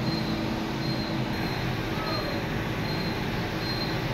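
Steady drone of foundry machinery, a constant hum over broad rumbling noise, with a faint high-pitched tone pulsing about twice a second.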